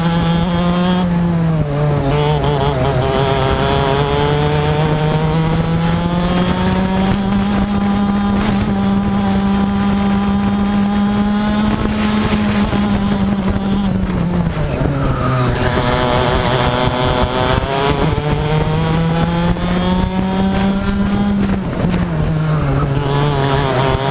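Two-stroke racing kart engine at high revs, heard onboard, with karts close ahead. Its pitch climbs slowly along the straights and drops sharply three times as the kart brakes for corners: about a second and a half in, about fourteen seconds in, and near the end.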